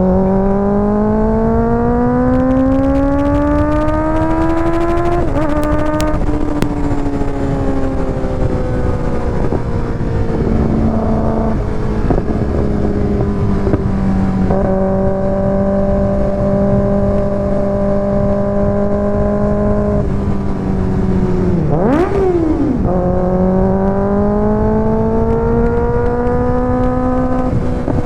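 2024 Kawasaki ZX-6R's inline-four running through an IXIL aftermarket exhaust while riding. The revs climb over the first five seconds, then drop sharply at an upshift and ease off into a long steady cruise. About 22 seconds in comes a quick sharp rev blip, and then the revs climb again.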